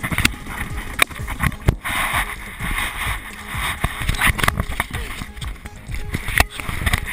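Water splashing and sloshing, with irregular knocks and bumps throughout.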